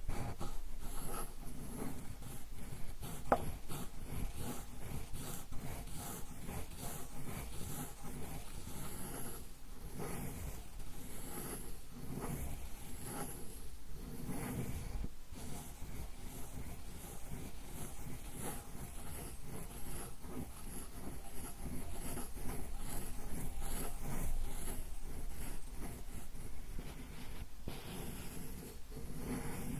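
Sumi ink stick being ground on a Japanese inkstone (suzuri): steady rubbing in repeated back-and-forth strokes, with a small sharp click about three seconds in.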